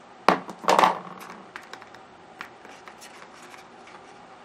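Rolls of washi tape being handled and moved about in a white box organizer: a sharp knock about a third of a second in, a short scraping rustle just before a second in, then light scattered taps and clicks.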